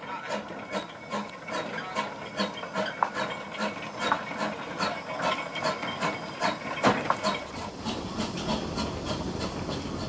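Steam locomotive of the Brienz Rothorn rack railway chuffing steadily, about two to three puffs a second over a continuous hiss. Near the end the puffs blur into a denser, steadier noise.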